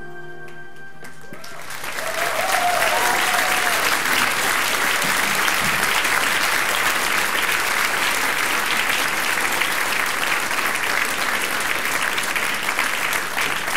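The band's final chord rings out for about a second and a half, then the audience bursts into applause that goes on steadily, with a few cheers in the first couple of seconds of clapping.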